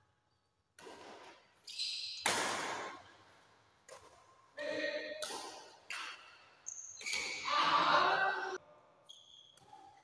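Badminton rally in a large echoing hall: a string of sharp racket strikes on the shuttlecock, a second or more apart, with short shoe squeaks on the tiled floor. Players call out about halfway through and again in the last few seconds.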